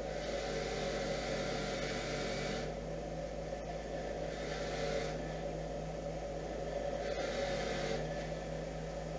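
Three hissing blasts of aerosol cleaner sprayed on starter parts: a long one of about two and a half seconds, then two short ones, each stopping abruptly. A steady machine hum runs underneath.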